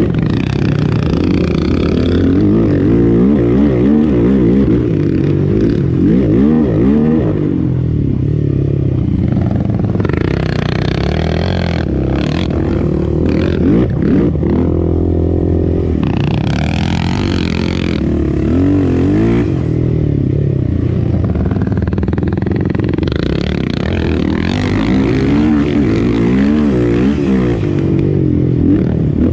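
Single-cylinder four-stroke sport ATV engine running on a trail ride, its pitch rising and falling continually as the throttle is worked.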